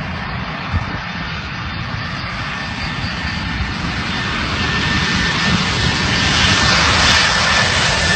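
Airplane engine noise growing steadily louder, with a thin, steady high whine that strengthens in the second half.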